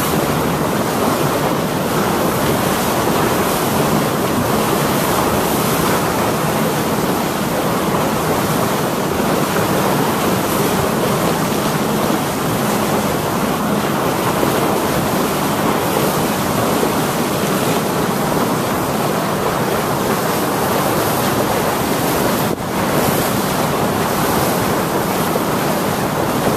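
Steady rush of wind buffeting the microphone over choppy water sloshing around a moving boat, with one brief dip in the noise near the end.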